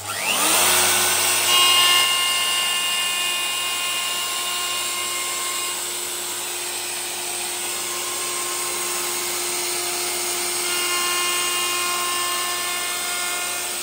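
Festool router spinning up with a rising whine, then running steadily at full speed as it trims the curved edge of a wooden shelf panel in a final cleanup pass.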